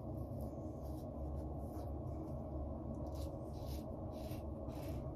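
Stainless steel Timeless safety razor with a Feather blade scraping through lathered stubble in short strokes, about one to two a second, over a steady low background hum.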